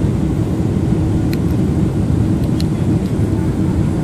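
Steady low rumble of a Boeing 777-300ER in flight, heard inside the cabin: its GE90 engines and the airflow over the fuselage, with a faint steady hum. A couple of faint ticks come through about a second and two and a half seconds in.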